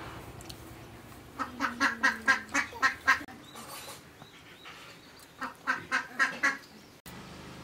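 A farmyard bird, duck-like, calling in two runs of quick, loud calls, about four a second: the first run about a second and a half in, the second in the latter half.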